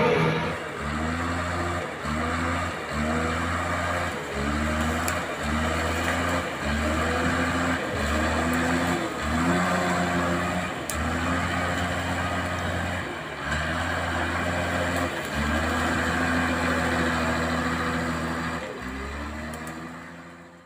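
Electric drive motors and metal gearbox of a converted hobby RC bulldozer running in short throttle bursts, about one a second. Each burst starts with a rising whine that then holds steady, and the runs get longer near the end before the sound fades out.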